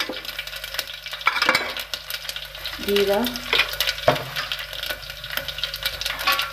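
Mustard seeds, fenugreek seeds and chillies sizzling in hot mustard oil in an aluminium pressure cooker, with quick sharp crackles of seeds popping throughout.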